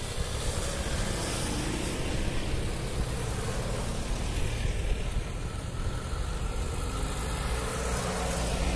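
A convoy of off-road 4x4s driving past one after another on a dirt track, their engines running steadily.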